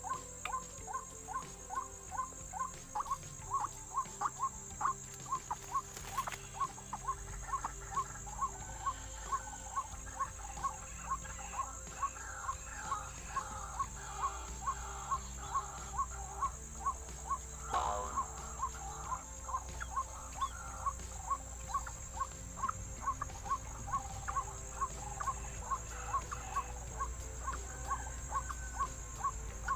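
White-breasted waterhen calling: one short note repeated over and over at about two a second, with a brief louder, rougher burst about eighteen seconds in.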